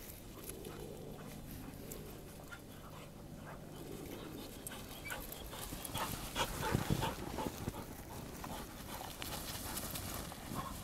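Dogs panting as they run and bound through deep snow, their paws crunching in it; louder for a moment about six seconds in.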